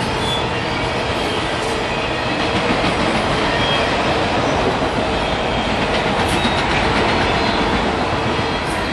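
Canadian Pacific freight train of autorack cars rolling past at close range: steady noise of steel wheels running on the rails, with a few faint clicks.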